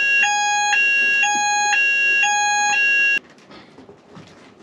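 Fire alarm system sounders going off loudly in a two-tone alarm, the tone switching between high and low about every half second over a steady tone. The alarm cuts off suddenly about three seconds in as the system is reset.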